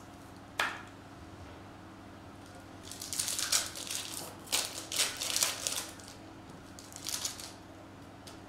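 A sharp tap about half a second in, then the foil wrapper of a trading-card pack being torn open and crinkled in several short bursts.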